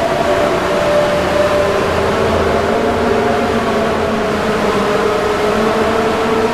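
Edited Emergency Alert System alarm sound: a loud, steady drone of several held tones that drift slightly in pitch, over a dense noisy rumble.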